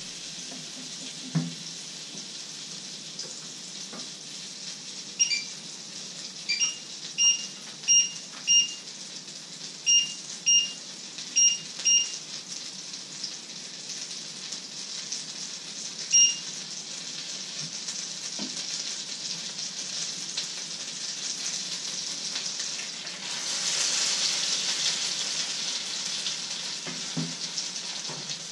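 A thin pancake frying in a pan, a steady sizzle; near the end the sizzle swells louder as a new pancake cooks in the hot pan. About a third of the way in, a run of about ten short electronic beeps, with one more a few seconds later.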